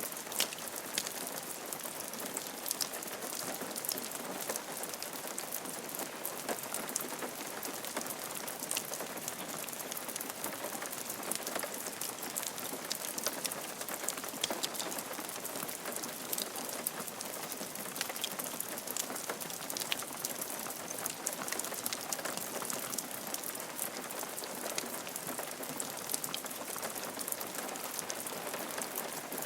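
Steady rain falling on a roof: a constant hiss dense with small, sharp drop ticks.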